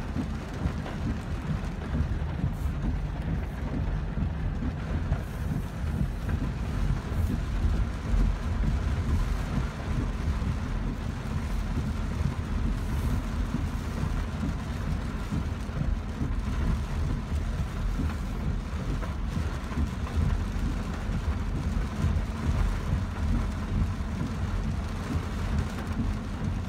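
Heavy rain pouring onto a car's roof and windows, heard from inside the cabin over the steady low rumble of the car driving.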